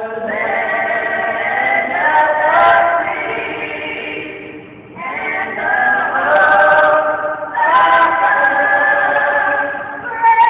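A small vocal group singing the national anthem a cappella in harmony, in two long held phrases with a brief dip about five seconds in.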